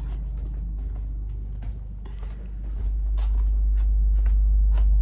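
A steady low rumble that grows louder about three seconds in, with scattered light clicks and knocks over it.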